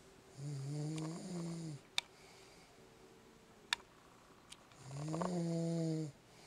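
A man snoring in his sleep: two long snores about four seconds apart, each held at a steady pitch for over a second. There are two sharp clicks in the gap between them.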